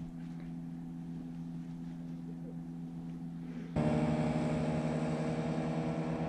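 Motorboat engine running steadily with an even hum. About two-thirds of the way through it suddenly becomes louder and fuller.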